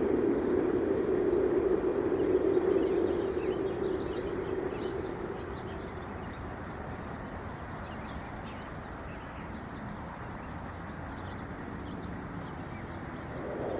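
Wind blowing outdoors, strong at first and easing off about five seconds in, then picking up again at the very end. Faint bird chirps are scattered through the middle.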